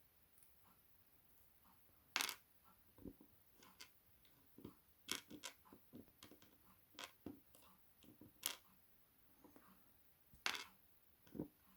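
Faint, irregular light clicks and taps of small metal lock parts being handled as a Chubb M3 pin-tumbler lock is taken apart, its pins coming out one at a time.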